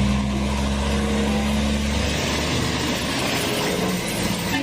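A steady machine drone, an even low hum under a broad hiss, with no break or change in pitch.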